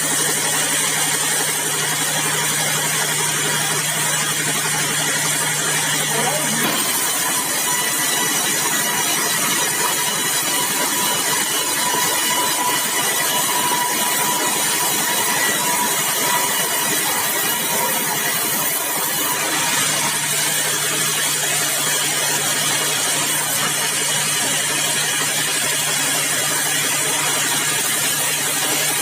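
Sawmill saw machinery running loudly and continuously, with a steady mechanical din. The machine's low hum changes about seven seconds in and comes back about twenty seconds in.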